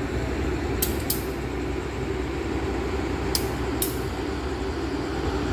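Diesel locomotive's engine running with a steady low rumble as it moves into the station yard, with a few short, sharp high ticks about a second in and again past three seconds.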